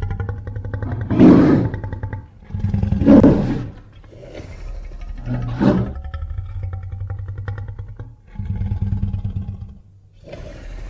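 Designed giant-ape creature roars, layered from animal and movie-monster recordings. Three loud roars come in the first six seconds, with low pulsing growls between and after them.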